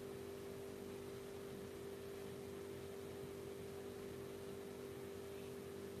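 Faint steady electrical hum with an even background hiss.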